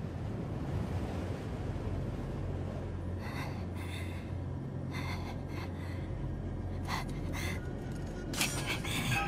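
A low, steady, ominous drone with a person's short, tense breaths or gasps heard several times from about three seconds in, closer together near the end.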